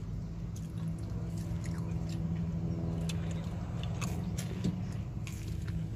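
Biting and chewing chicken nuggets, mouth noises with scattered short crunchy clicks, over a steady low hum.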